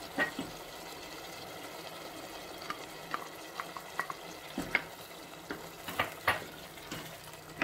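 Wooden spoon stirring a stew of lamb, onions, carrots and tomato sauce in a metal pot, with scattered scrapes and knocks of the spoon against the pot over a steady low sizzle of the food cooking.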